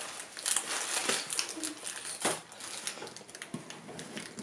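Scattered light clicks, taps and rustles of hands working around a metal springform cake pan on a tabletop.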